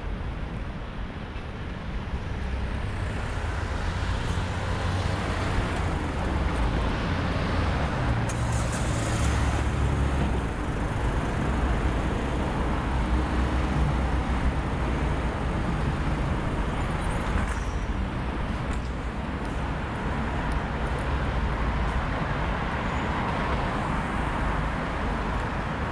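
City street traffic: car and van engines running and passing close by, a steady low rumble that gets louder about two seconds in, with a short hiss now and then.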